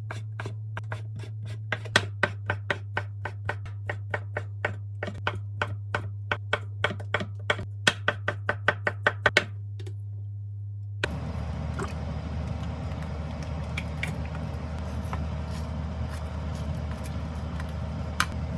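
Knife chopping vegetables on a cutting board in quick, even strokes, about three to four a second, over a low steady hum. Partway through, the chopping stops and a steady hiss with a low hum takes over.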